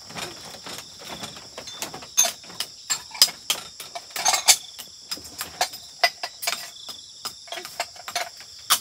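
Irregular clattering and knocking of household things being picked up and set down during tidying, with steady insect chirring behind.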